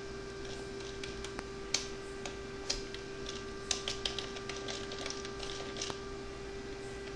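Typing on a computer keyboard: irregular keystroke clicks, a few a second, some louder than others, over a steady hum.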